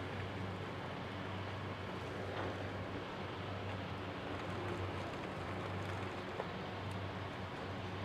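Tractor's diesel engine running steadily with a low hum while the tractor drives off carrying the loaded bale grabber.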